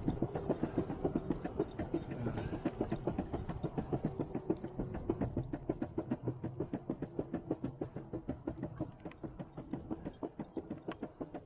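Off-road skateboard wheels rolling fast over a concrete sidewalk: a steady rumble with rapid, evenly spaced clacks as the wheels cross the sidewalk joints.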